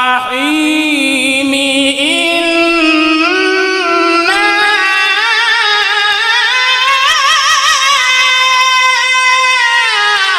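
A male Quran reciter holds one long, melodic drawn-out phrase of tajweed recitation on a single breath. His voice climbs in steps to a higher pitch with wavering ornaments and eases down near the end.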